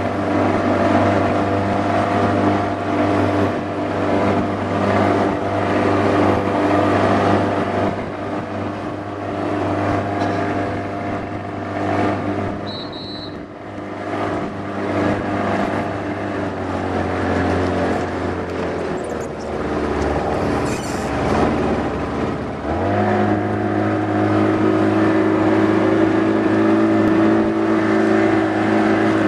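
Motorboat outboard engine running steadily under way. Its note sags and drops off about two-thirds through as the throttle eases, then picks up sharply a few seconds later and holds steady.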